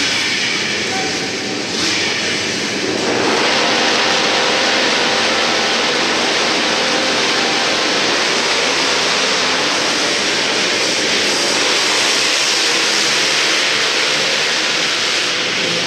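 A pack of racing quads (Yamaha Blaster and Raptor ATVs) with engines revving together inside an arena hall. The engine noise swells sharply about three seconds in and stays loud and dense as the quads leave the line and race round the dirt track.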